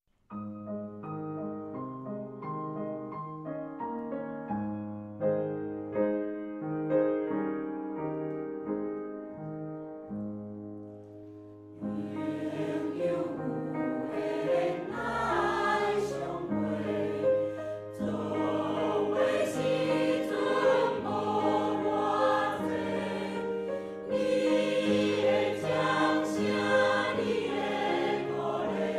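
Closing theme music with choir singing. It starts softly just after the sign-off and becomes fuller and louder about twelve seconds in.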